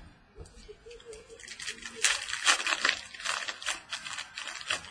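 Trading cards and their packaging being handled: crisp rustling and crinkling, thickest from about a second and a half in.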